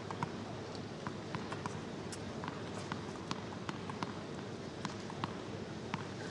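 Tennis ball strikes and bounces during a rally: about fifteen short, crisp pops at uneven spacing, with players' footsteps, over the low steady hum of a stadium crowd.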